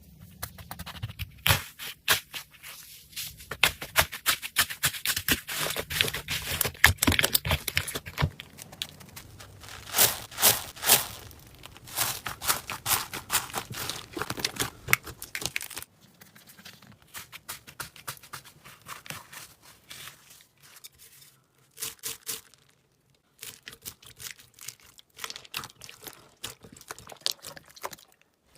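Slime being squeezed and poked by hand: dense crackling and popping clicks, which thin out and get quieter about two-thirds of the way through.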